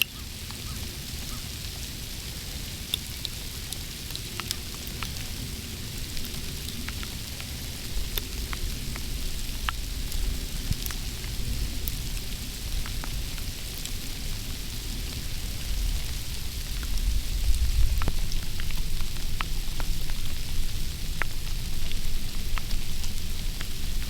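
Sleet falling: a steady hiss scattered with many small ticks of pellets striking, under a low wind rumble on the microphone that grows stronger in the second half.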